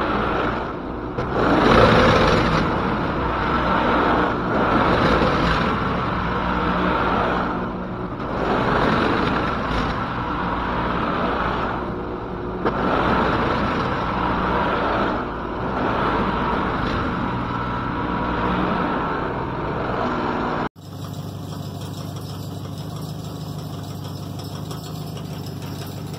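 Two-stage gas snowblower running and clearing snow; its sound swells and eases every couple of seconds as it works. About three-quarters of the way through it cuts off abruptly to a quieter, steady hum.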